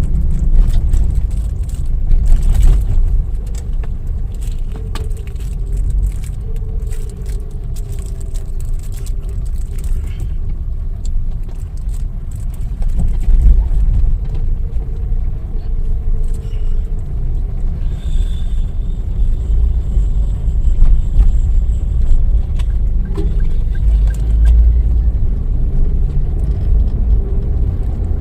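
Low, steady rumble of a car's engine and road noise heard from inside the cabin as it drives.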